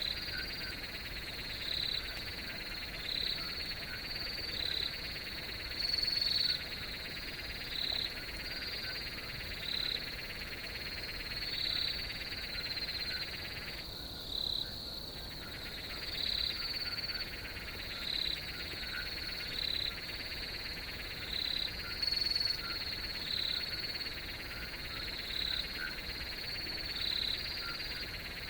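Crickets chirping in a steady night chorus: a continuous high trill, with a louder chirp repeating roughly once a second. A lower layer of the chorus briefly stops about halfway through, then resumes.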